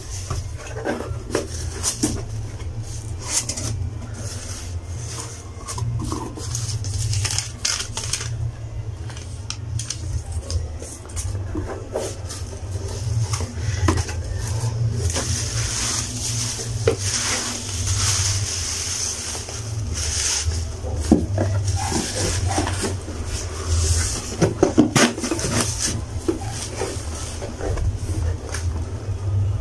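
A cardboard parcel being opened and unpacked by hand: irregular rustling and crinkling of box flaps, wrapping and paper, with scattered clicks and knocks. A steady low hum runs underneath.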